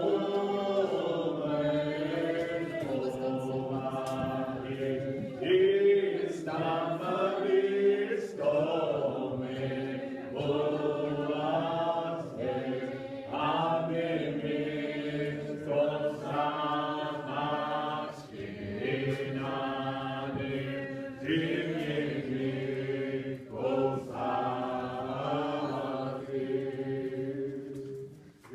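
Congregation singing a hymn in the Muscogee Creek language, unaccompanied voices in long sustained phrases, recorded on a phone in a church.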